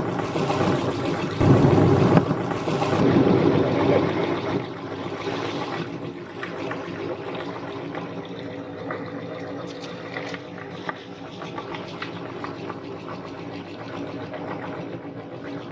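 Meat grinder running and grinding soft cookies into crumbs: a steady mechanical hum with rougher, louder grinding over the first few seconds, then settling to a steadier, softer run with a few clicks.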